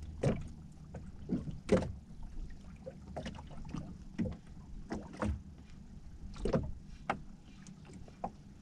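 Small waves slapping and lapping against the hull of a small boat, in irregular splashes about a second apart.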